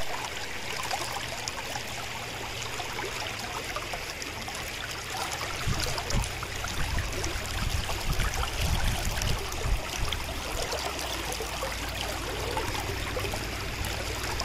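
Shallow river water rippling and running over a rocky shoal, a steady rushing, with some low rumbles through the middle.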